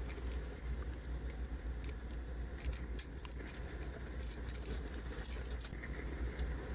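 Handling noise from unpacking a mechanical keyboard: scattered, irregular small clicks and rustles over a steady low rumble.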